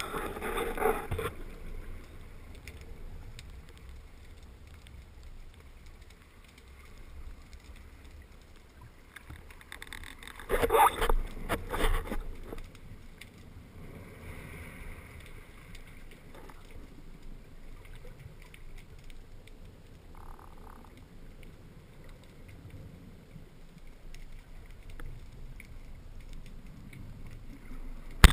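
Underwater ambience heard through a waterproof camera housing: a steady low rush of moving water, with two louder bursts of water noise, near the start and about ten seconds in. It ends on a single sharp snap as the speargun fires.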